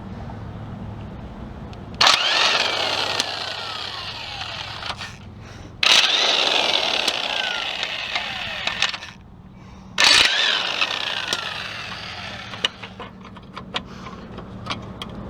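A power tool, likely being used to take bolts out during the engine teardown, runs in three bursts of about three seconds each. Each burst starts suddenly and fades with a falling pitch. A low steady hum runs underneath, and a few sharp clicks come near the end.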